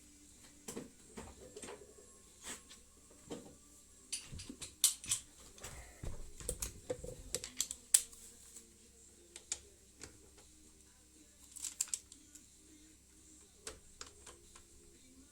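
Irregular light clicks and taps of metal tools and parts being handled during engine work, in uneven clusters with a few sharper knocks in the middle.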